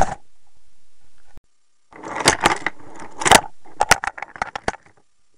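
Toy train cars crashing: a sharp knock at the start, then after a short pause a couple of seconds of rattling clatter and knocks of hard plastic pieces tumbling against each other.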